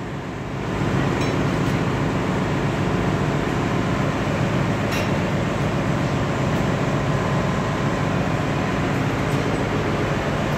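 Steady machinery noise of a ship's engine room, an even din with a low hum through it, rising a little in level about a second in.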